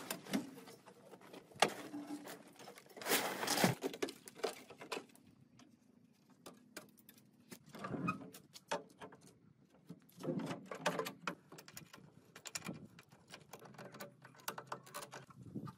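Scattered knocks, clicks and scrapes of rusty metal as the old UAZ 469's door and window frame are worked by hand, with a few louder bursts of rattling and scraping.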